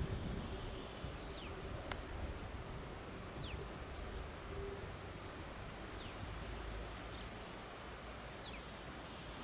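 Faint outdoor ambience: a bird repeating a short, high whistle that falls in pitch, about every two seconds, over a low steady rumble. A single sharp click about two seconds in.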